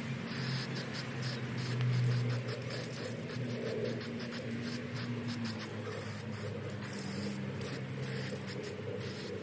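Continuous rapid scratching and scraping on a surface, made up of many small quick clicks, over a steady low hum.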